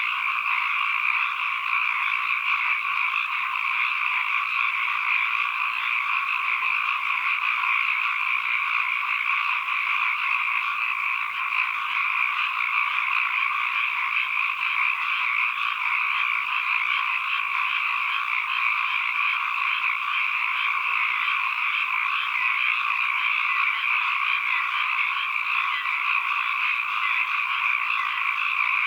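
A dense chorus of many frogs calling together, a steady continuous mass of overlapping croaks with no single caller standing out.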